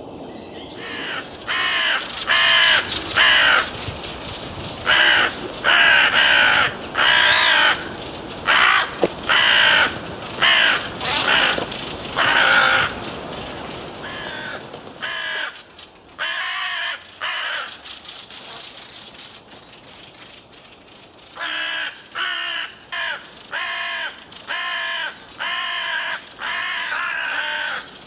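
A crow cawing in long runs of short harsh calls, one or two a second, with a pause partway through. Wind rumbles on the microphone under the first half.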